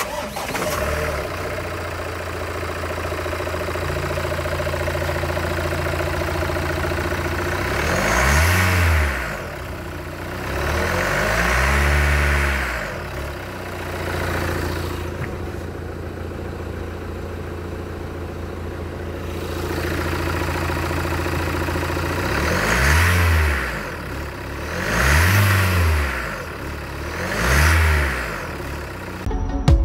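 Renault Trafic's four-cylinder turbo-diesel engine idling steadily, revved up and let fall back to idle several times: once about eight seconds in, a longer rev a few seconds later, and three quick blips in a row near the end.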